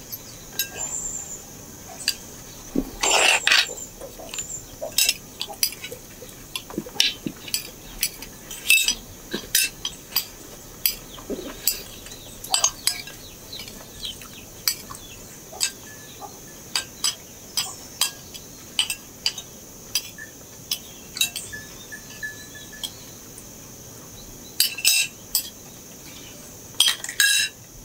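Spoons and forks clinking and scraping on china plates and a large aluminium serving pan as people eat, in irregular light clinks. Under it, a steady high chirring of crickets.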